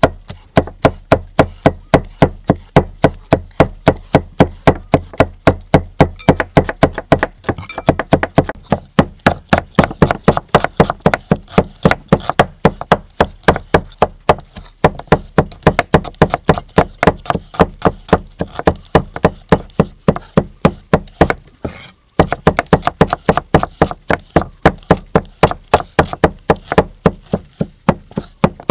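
Cleaver chopping rapidly and evenly on a thick wooden chopping board, about three or four strokes a second, mincing garlic and then slicing red shallots, with one short break about two-thirds through.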